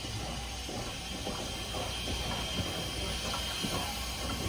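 Steam locomotive No. 89, a 2-6-0 Mogul, rolling slowly with steam hissing and its rods and running gear clanking and knocking irregularly over a low rumble.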